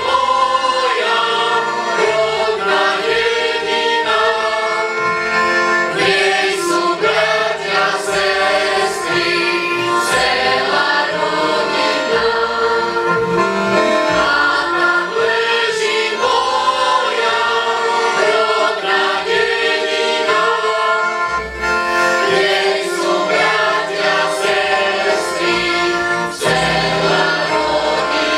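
Mixed choir of men and women from a Slovak folk ensemble singing a folk song in several parts, accompanied by fiddles.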